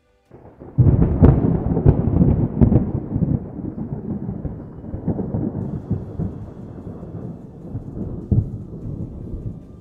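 A sudden loud boom about a second in, then a long low rumble full of sharp crackling cracks that slowly fades.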